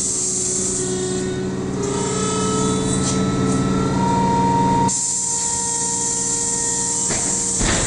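Standing trolleybus's onboard equipment humming steadily, with a low hum, a few thin whining tones and a high hiss. About five seconds in, the hiss jumps up suddenly as something switches on.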